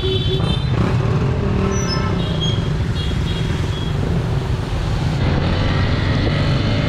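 Honda 150cc dirt bike running on the move, a steady low rumble of engine and riding noise.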